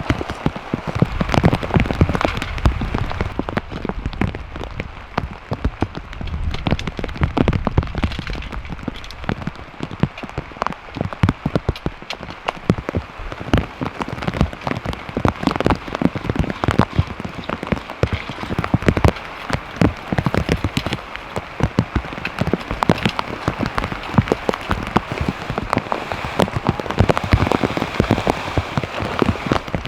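Rain falling, with a dense, irregular run of sharp ticks as individual drops hit a surface close by.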